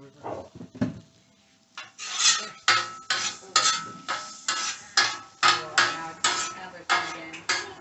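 Metal spatula scraping and chopping scrambled eggs on a Blackstone griddle's steel cooktop. Quick repeated strokes, about two or three a second, start about two seconds in.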